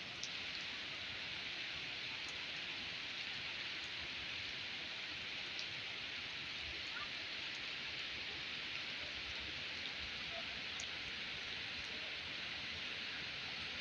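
Steady rain falling on forest trees and undergrowth: an even hiss with a few faint drip ticks.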